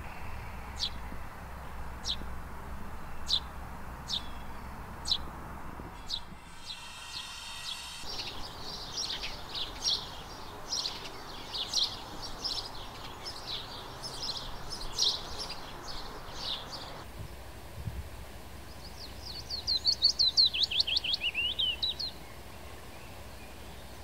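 Eurasian tree sparrow giving single sharp chirps about once a second, then house sparrow chirping rapidly and repeatedly. Near the end a willow warbler sings one loud phrase of quick notes that runs down the scale.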